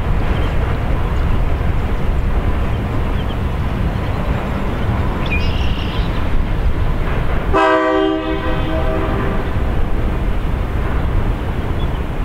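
A steady low rumble, then about two-thirds of the way through a locomotive sounds one short, multi-toned blast, with a train on the bridge approaching.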